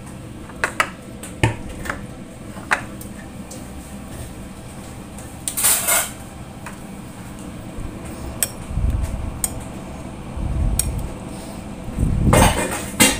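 Spoon clinking against a ceramic serving bowl of food, in scattered sharp clicks with a louder clatter about halfway through. Near the end the bowl is gripped and moved on the stone counter while the spoon stirs the food, giving a low rumble and a louder burst of clatter.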